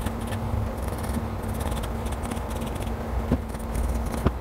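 Carpenter's pencil scratching and rubbing over the rough bark of a tree branch as lines are sketched onto it, with two light knocks about three and four seconds in, over a faint steady low hum.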